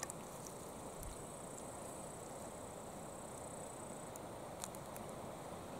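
Steady, high-pitched insect chirring from crickets or grasshoppers that stops about four seconds in. A few faint clicks sound over it.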